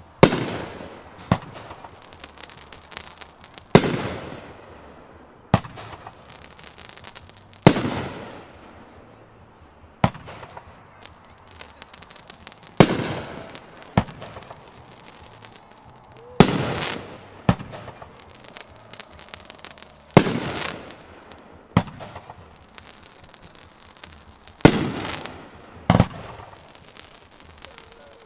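Consumer firework cake (Flashing Fireworks Dirty Dozen, cake three) firing single shots about every four seconds. Each shot is a loud bang with a trailing rumble, followed a second or so later by a smaller, sharper bang.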